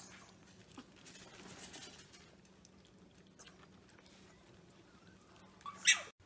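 Maltese puppies eating wet food from a bowl: faint smacking and small clicks of chewing and lapping. A brief, sharp, much louder sound comes near the end.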